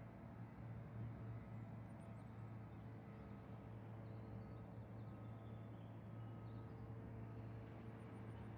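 Quiet outdoor ambience dominated by a steady low hum like distant engines or traffic, with faint high chirps a few times.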